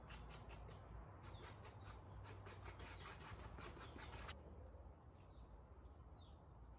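Faint, irregular scraping and rubbing as a gloved hand works Devcon plastic welder into a fabric patch on cardboard, cutting off abruptly about four seconds in. After that, quiet room tone with a few faint bird chirps.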